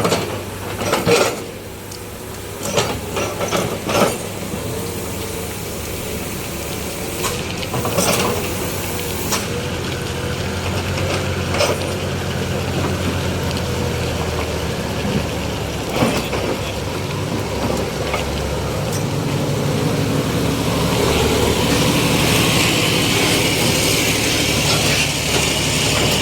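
Heavy vehicle engine running steadily, growing louder toward the end, with several sharp clanks in the first few seconds.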